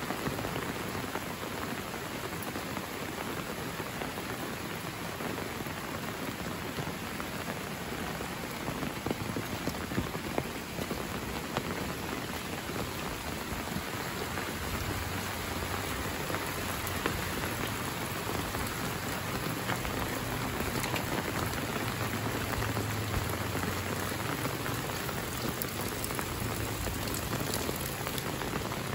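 Steady rain falling on leaves and wet ground, with occasional sharper drop hits.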